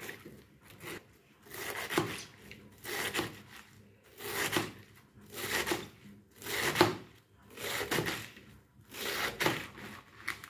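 Kitchen knife slicing through a head of napa cabbage on a cutting board. It makes a crunching stroke about once every second and a quarter, and some strokes end in a sharp tap of the blade on the board.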